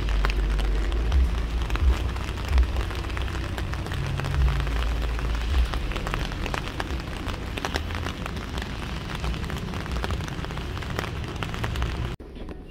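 Steady rain falling, with many sharp drop ticks over a low rumble. It cuts off suddenly near the end.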